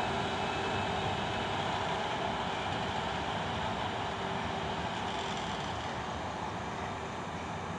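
WAP-1 electric locomotive running light along the track, a steady rumble with a faint steady hum that slowly fades as it moves away.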